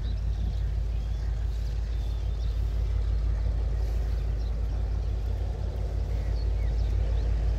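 Distant Bangladesh Railway diesel locomotive approaching at the head of an empty container freight train: a steady low engine rumble, growing slightly louder toward the end.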